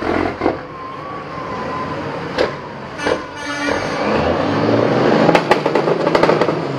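Custom Kenworth semi-truck's diesel engine pulling away with its trailer, building to harder acceleration about four seconds in. Several short, sharp sounds are heard over it.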